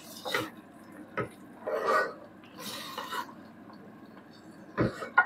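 Wooden spoon stirring and scraping thick, sticky jujube achar against a stainless steel pot: several separate scraping strokes, with a couple of short knocks of the spoon on the pot.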